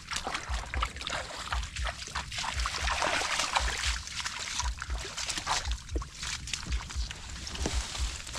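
Footsteps through wet grass and low weeds, with leaves and stems rustling and swishing against legs, and dull thumps of the steps about every half-second.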